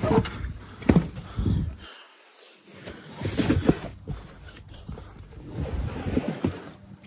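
Water-soaked car floor carpet being handled and lifted by hand, giving irregular rustles and dull thuds that come loudest about a second in and again around three and a half seconds.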